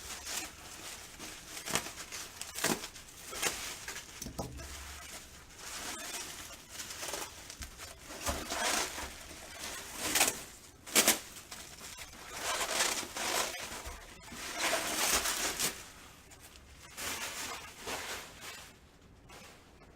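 Packaging being handled and unwrapped: irregular rustling and crinkling in bursts, busiest in the middle stretch.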